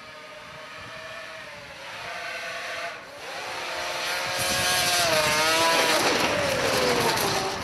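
Racing snowmobiles at full throttle on a snow drag strip, engine pitch climbing as they accelerate. About three seconds in, one sled comes up louder and passes close with a hiss of snow spray, its pitch dropping as it goes by near the end.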